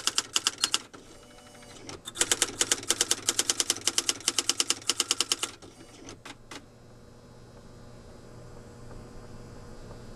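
Smith-Corona Typetronic III electronic daisy-wheel typewriter automatically typing out text recalled from its memory, with rapid, even strikes at about eight to ten a second. A short run is followed by a pause of about a second, then a longer run that stops about halfway through, a few single clicks, and the machine's faint steady hum.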